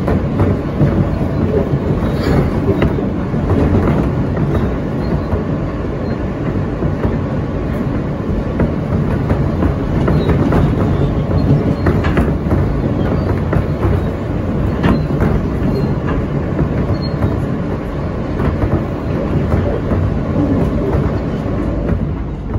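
Inside an R160A subway car running along the track: a steady low rumble of wheels on rail, with sharp clicks from the wheels crossing rail joints every few seconds.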